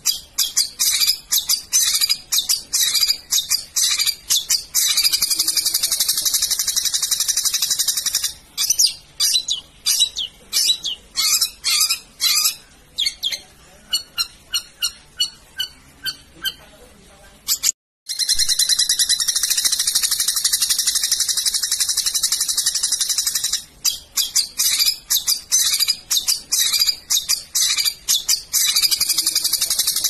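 Long-tailed shrike (cendet) calling in fast, dense, high-pitched chatter. In the middle the chatter gives way for a few seconds to separate repeated notes. The sound cuts out for a moment just past halfway, then the rapid chatter resumes.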